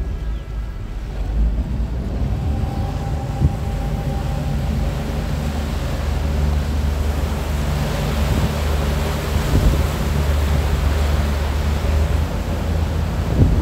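A passenger ferry's engine runs with a steady low drone, heard from the open rear deck while the boat is under way. The rush of water from its churning wake and wind on the microphone grow louder in the second half.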